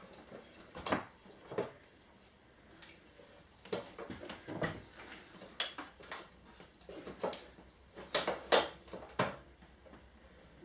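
Scattered metallic knocks and clicks from a sheet-metal fluorescent tube fitting being handled and shifted against the ceiling, about nine in all. The loudest cluster comes a little past eight seconds in.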